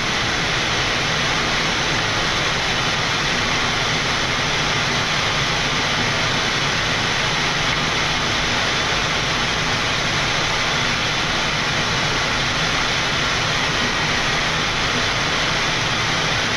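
Steady flight-deck noise of a Boeing 787 on short final approach: an even rushing hiss at a constant level.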